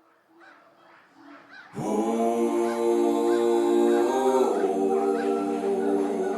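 Vocal music: voices holding a sustained chord that comes in sharply about two seconds in and shifts to a new chord around the four-second mark. Before it there are faint, short repeated chirps.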